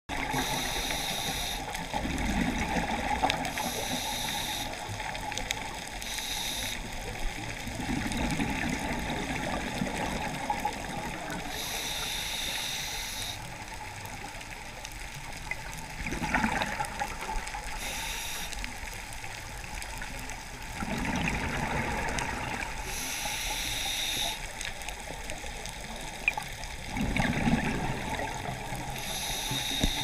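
A scuba diver breathing through a regulator, heard underwater. Each breath in is a hiss and each breath out is a bubbling gurgle, in a steady cycle about every five to six seconds.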